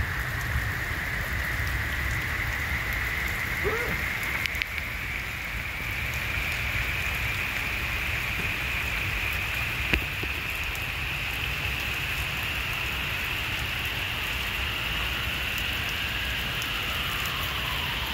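Heavy rain pouring onto wet, puddled pavement: a steady, even hiss, with a single sharp click about ten seconds in.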